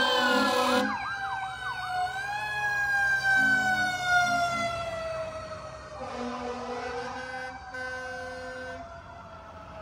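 Passing emergency vehicle sirens: a wail sliding slowly down in pitch, with a quick yelping sweep about a second in. Several short, low blasts of an air horn come in the second half.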